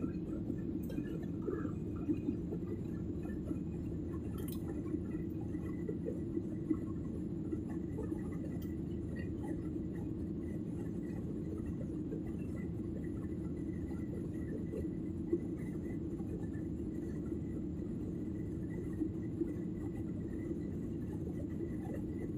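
Steady cabin noise of a Boeing 737 airliner climbing after takeoff: a low, even rumble of engines and airflow heard inside the cabin, with a faint steady high tone and a few faint clicks.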